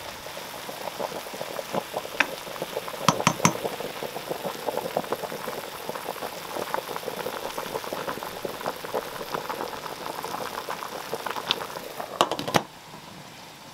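A stainless steel pot of pork knuckle, vegetables and water boiling hard under a layer of kitchen paper, with a steady bubbling crackle. A few knocks sound about three seconds in. Near the end a glass lid clinks onto the pot and the bubbling cuts off.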